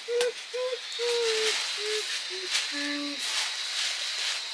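A voice humming a simple tune in short, steady notes, stepping down to a lower held note about three seconds in. Under it are a few light rustles and clicks from a plastic bag of flour being handled, and a steady hiss.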